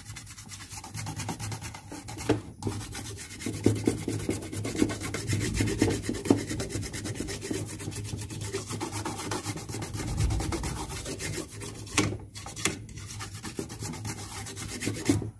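A stiff plastic brush scrubbing the solder side of a printed circuit board in rapid back-and-forth strokes, cleaning the freshly resoldered joints.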